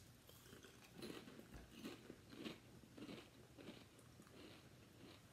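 Two people chewing crisp potato chips: faint, short crunches about twice a second.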